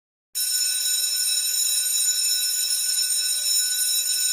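Loud, steady electric alarm-type ringing that starts abruptly about a third of a second in and holds unchanged, with no rise or fall in pitch.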